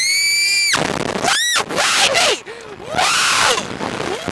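Young women screaming on a Slingshot reverse-bungee ride: a long, high scream at the start, a shorter one about a second and a half in, then lower cries and yells.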